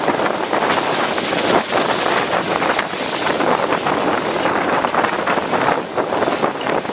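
Wind rushing over the microphone at an open window of a moving passenger train, a steady loud rush mixed with the train's running noise.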